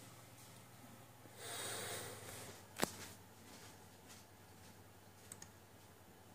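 A brief rustle about a second and a half in, then one sharp click, and a faint double click near the end.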